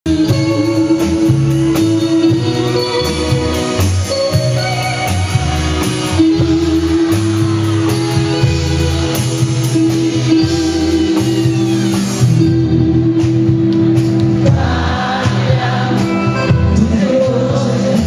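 Live amplified band music in the Nueva Ola pop style, a man singing lead over a repeating bass line and a held keyboard-like tone.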